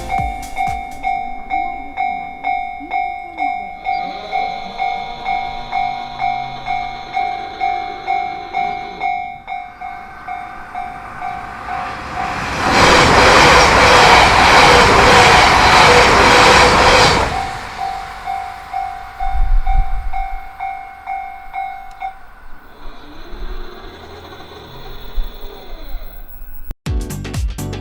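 A Japanese level-crossing alarm bell clanging at about two strokes a second while a Yamagata Shinkansen train runs through the crossing. The train passes loudly for about five seconds in the middle, with a rhythmic clatter of wheels over the rail joints. The bell then keeps ringing and stops about 22 seconds in.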